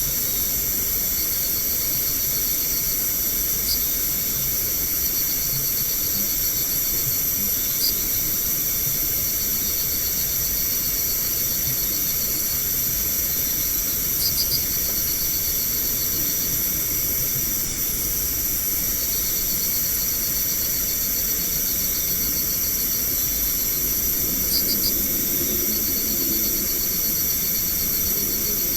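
Night insect chorus, crickets trilling steadily in several high pitches over a constant hiss, with a few louder chirps now and then.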